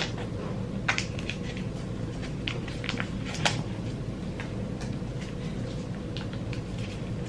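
Small packet of hair mask being handled and squeezed by hand: a few soft, scattered crinkles and clicks over a steady low hum.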